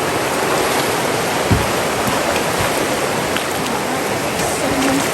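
Steady, loud rush of flowing river water, with one dull knock about a second and a half in.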